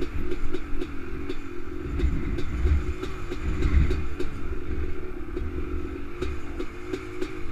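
Honda TRX 250R ATV's two-stroke single-cylinder engine running at trail-riding speed, its pitch wavering slightly as the throttle is worked, heard from the rider's helmet. A low uneven rumble and frequent short clicks and knocks ride along with it.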